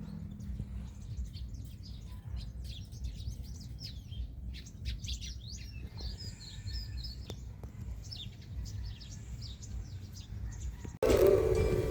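Small birds chirping and calling, many short quick chirps, over a steady low rumble. About eleven seconds in, a louder sound cuts in abruptly for about a second.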